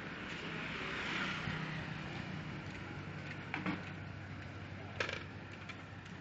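Outdoor street ambience: a steady background of city noise with a low hum, broken by a few short knocks, the sharpest about five seconds in.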